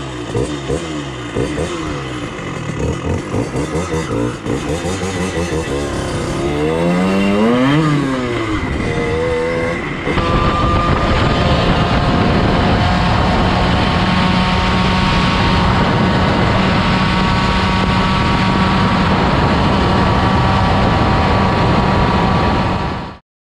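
Moped engine under way, its revs rising and falling repeatedly for the first ten seconds, then holding a steady note while cruising. The sound cuts off abruptly near the end.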